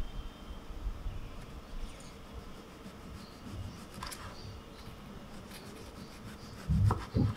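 Kitchen knife cutting through a tomato on a wooden cutting board: faint rubbing and scraping of the blade, with a light tap about four seconds in and two dull thumps near the end.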